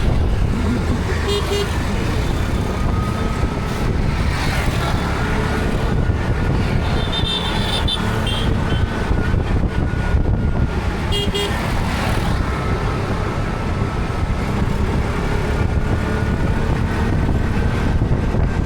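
Road traffic: a steady engine and tyre rumble with a few short car-horn toots, about a second and a half in, around seven seconds and around eleven seconds.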